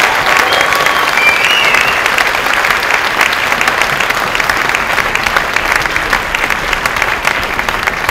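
Audience in a hall applauding loudly after a spoken-word poem, a dense patter of many hands clapping that slowly tapers off, with a short cry from the crowd about a second and a half in.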